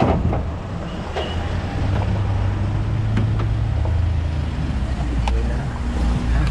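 Pickup truck engine idling with street traffic around it: a steady low hum that swells from about two seconds in. There is a sharp knock at the start and a few light clicks and knocks through the rest.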